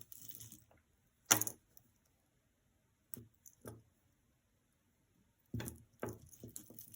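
Costume jewelry being handled: beads and metal pieces clicking and clinking, with one sharp clack about a second in and a run of light clinks near the end.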